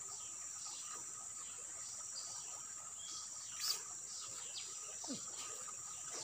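Steady high-pitched drone of insects, with short falling bird chirps every second or so. One sharp click comes about three and a half seconds in.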